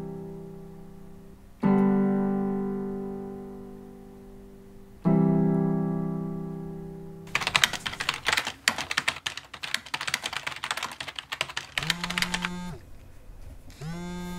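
Three sustained electric piano chords, each struck and left to fade over about three seconds. Then a flurry of rapid keyboard-typing clicks lasts about five seconds, and near the end come two short electronic buzzes about two seconds apart, a phone ringing before the call is answered.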